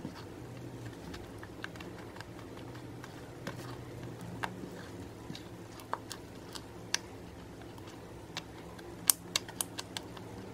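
Thick apricot face-mask slime being stirred and folded with a silicone spatula in a glass bowl: scattered sticky clicks and pops at irregular intervals, with a quick run of several near the end.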